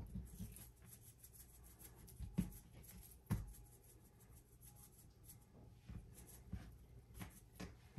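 Faint rustling and light knocks of hands handling things in a kitchen, with two sharper knocks about two and a half and three and a half seconds in.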